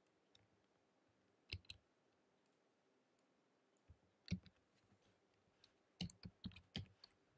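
Faint computer keyboard and mouse clicks during code editing: two clicks about a second and a half in, one near the middle, and a quick run of keystrokes near the end.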